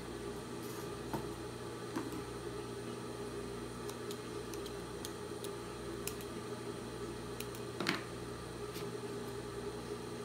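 A steady low hum, with soft rustles and a few light clicks as cotton patchwork pieces are handled and folded; the sharpest click comes near the end.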